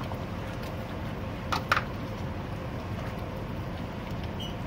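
Spoon stirring a thick curry in a frying pan over a steady background hum, with two sharp knocks about a second and a half in.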